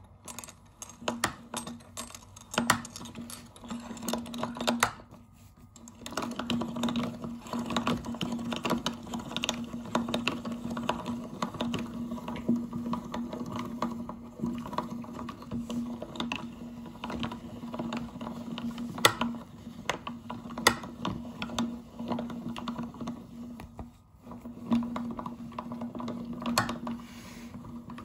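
Aluminium meat grinder working chocolate-coated choco pie through its auger and perforated plate: the mechanism runs with constant clicking and crackling as the chocolate shell and sponge cake are crushed. It pauses briefly about five seconds in and again near the end.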